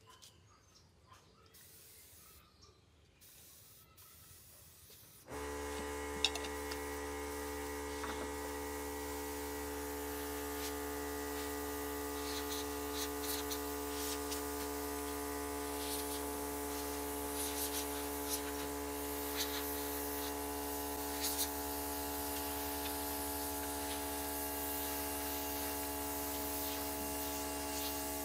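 An air compressor starts abruptly about five seconds in and runs with a steady hum, while a gravity-feed spray gun hisses, spraying finish onto a wooden coat rack. Before the compressor starts there are only faint rustles.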